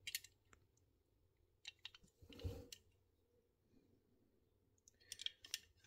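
Faint, scattered clicks and handling noise as fingers turn a small 1:64 diecast Hummer H1 model over, in a few short clusters with near silence between.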